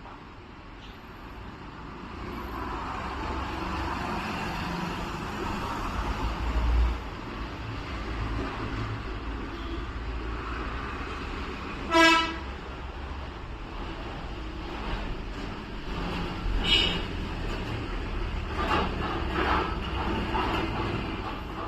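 Steady rumble of road traffic, with one short, loud horn toot about twelve seconds in and a few fainter calls or toots later on.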